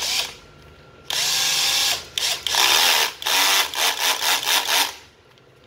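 National (Panasonic) EZT105 12-volt cordless drill/driver running off the trigger in several bursts with short pauses between them, spinning up each time, then stopping about five seconds in. It has no variable speed and no brake: squeezing the trigger simply runs it at full speed.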